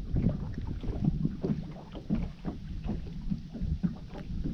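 Small waves lapping and slapping irregularly against a boat's hull, with wind buffeting the microphone.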